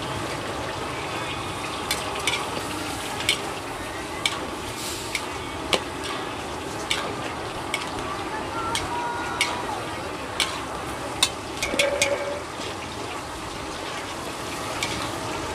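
Vegetable and pork stir-fry sizzling steadily in a large aluminium wok, with repeated sharp clanks and scrapes as two metal spatulas toss it against the pan.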